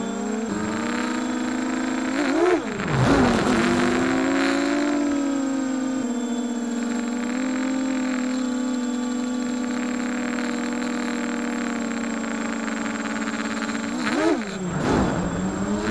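Brushless motors and propellers of a 250-size racing quadcopter, heard through its onboard camera's microphone: a steady high whine that twice drops sharply in pitch and surges back up as the throttle is cut and punched, about two and a half seconds in and again near the end.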